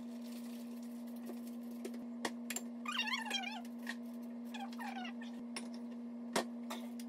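A pet's high, wavering cries, a few short ones, falling in pitch, over a steady low hum, with a few light clicks and knocks of utensils.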